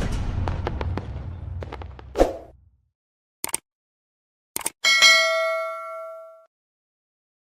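A fading rumble with a sharp hit just after two seconds, two short clicks, then a bell-like ding that rings out for about a second and a half.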